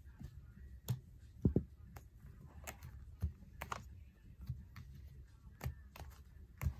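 Objects being handled and moved about: scattered light clicks and a few dull knocks at irregular intervals, the loudest about one and a half seconds in.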